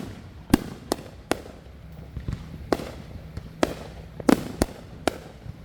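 Fireworks going off: about ten sharp bangs at uneven intervals, some a second apart and some in quick pairs.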